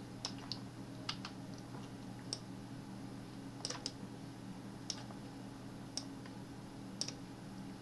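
Scattered computer mouse and keyboard clicks, about ten in all, some in quick pairs, over a faint steady low hum.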